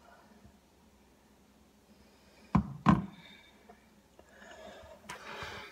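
Two quick, dull knocks on a hard surface, about a third of a second apart.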